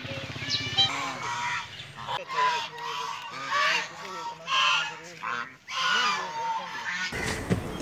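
Geese honking: a run of loud, repeated honks about a second apart.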